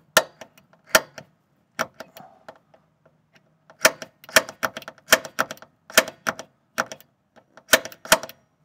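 Sharp metallic taps on the truck's sheet-metal door pillar, about a dozen at uneven intervals, each with a short ring: a small starter hole being tapped into the bared metal for a grounding-strap screw.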